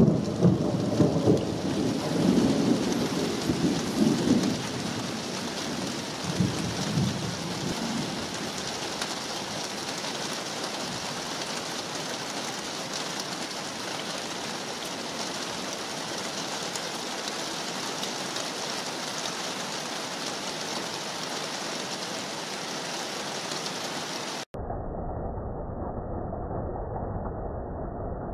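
Thunder rumbling over steady rain, the rumble dying away over the first four seconds, with a smaller rumble about six seconds in; after that only the even hiss of falling rain. In the last few seconds the sound turns dull and muffled, slowed down for a slow-motion replay.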